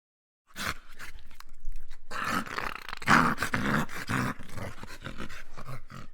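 Dogs growling in a scuffle: a rough, uneven run of growls that starts about half a second in and peaks around the middle.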